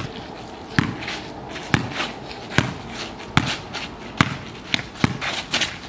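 Basketball being dribbled on pavement: a steady run of bounces, a little under one a second, coming quicker near the end.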